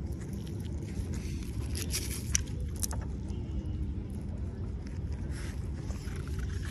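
A steady low rumble, with a few sharp clicks and scrapes about two to three seconds in from handling a rusty, encrusted lump of iron.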